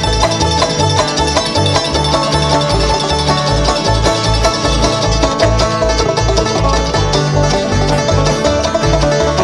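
Bluegrass string band playing live, with banjo picking over a steady bass line of about two notes a second.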